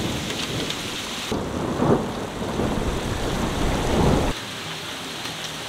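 Heavy thunderstorm rain pouring down with thunder rumbling. The rumble stops abruptly about four seconds in, leaving the steady hiss of the rain.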